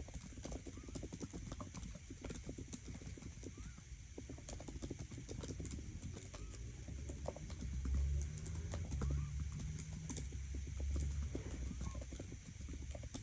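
Typing on a Logitech POP mechanical keyboard: a quick, irregular run of key clicks, over a low rumble that swells toward the middle.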